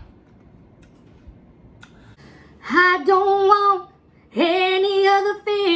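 A high voice singing in the background: after a quiet start, two long phrases begin about two and a half seconds in, each held on nearly one note for about a second, and a third starts near the end.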